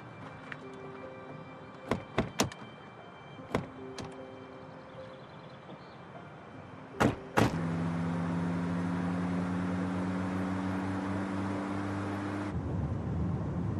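Car door clicks, then shuts with two loud knocks about seven seconds in, followed by the steady hum of the car running, under soft background music.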